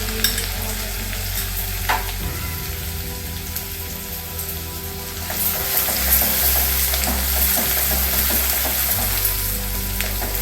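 Ground garlic, coconut and ginger paste sizzling as it is sautéed in a hot oil tempering in a kadhai, stirred with a few sharp clicks. The sizzle grows louder about halfway through.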